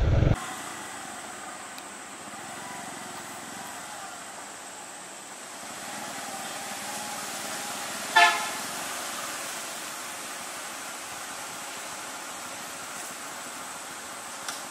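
One short vehicle horn toot about eight seconds in, over the steady hum of traffic.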